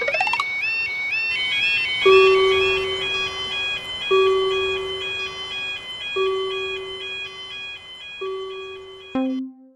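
Cartoon railroad-crossing warning bells: a fast electronic chime alternating between two high pitches, repeating over and over. About two seconds in, a lower held tone joins, sounding four times about two seconds apart. Near the end there is a knock and a short low tone, then the sound cuts off.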